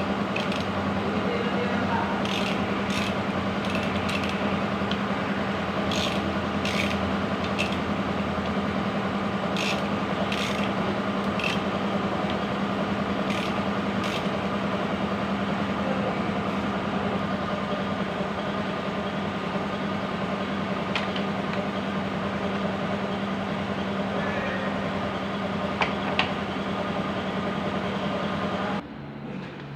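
A steady mechanical hum with scattered sharp clicks through the first half; the hum cuts off suddenly near the end.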